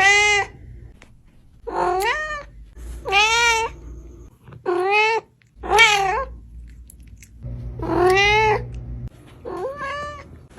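A cat meowing over and over: about six drawn-out meows, each rising and then falling in pitch, with short gaps between them.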